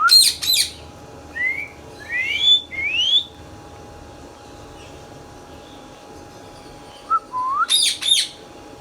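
Indian ringneck parakeet whistling and chirping: a shrill chirp, then a run of four short rising whistles, a pause of a few seconds, and another rising whistle followed by a quick burst of shrill chirps near the end.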